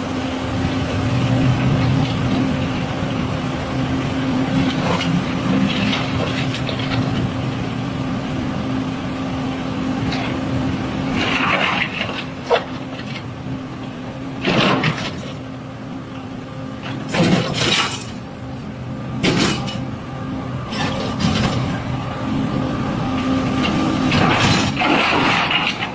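Excavator's diesel engine running steadily, with about six short, loud noisy bursts over it in the second half, the last one longer.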